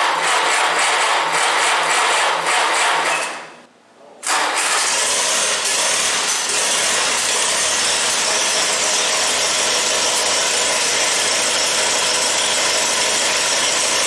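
1952 Case VAC tractor's four-cylinder engine being cranked over by the starter, which stops abruptly; about four seconds in it fires and settles into a steady run. This is its first start after the carburetor was rebuilt.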